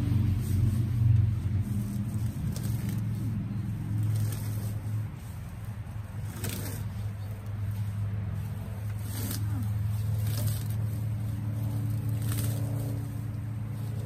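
A low, steady engine hum, with a few short clicks or rustles over it.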